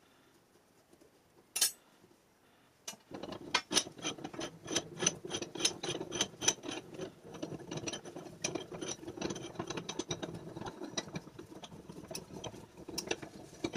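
Dry steel main screw of a Wilton bench vise being spun out of its nut by hand, a single click and then, from about three seconds in, a continuous fast run of metallic clicks and rattling from the unlubricated threads.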